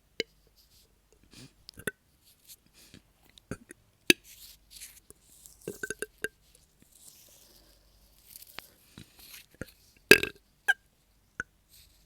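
A woman burping over and over: a string of short burps, the loudest one about ten seconds in.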